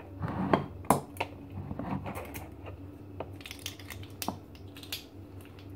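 Scattered light clicks and taps of plastic measuring spoons clinking and a clip-top glass jar's wooden lid being handled while salt is measured out, over a low steady hum.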